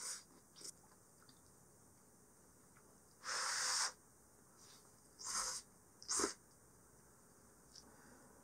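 Yakisoba noodles being slurped: three airy slurps, the longest a little over half a second about three seconds in, then two shorter ones about two and three seconds later. A few light clicks come at the start.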